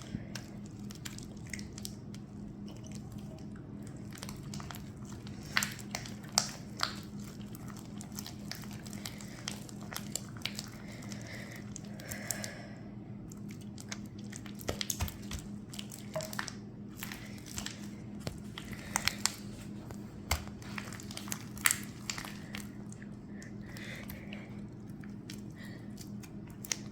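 Sticky glue-and-borax slime being mixed: irregular wet clicks and squelches, a few sharper than the rest, over a steady low hum.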